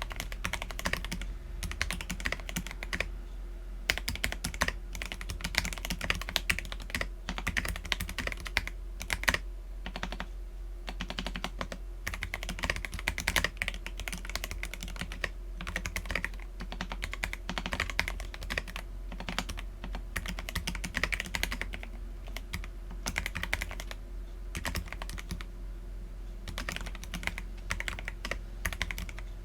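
Continuous typing on an Akko PC75B mechanical keyboard with lubed Akko Jelly Black linear switches and PBT Cherry-profile keycaps: a steady, unbroken stream of keystrokes.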